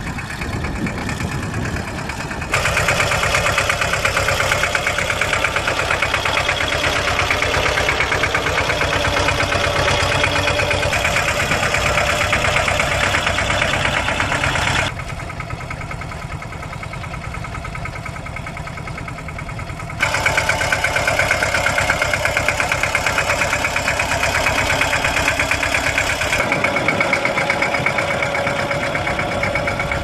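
Vintage Deutz air-cooled diesel tractor engine running with a rapid, regular knocking beat. Its loudness steps up and down sharply several times.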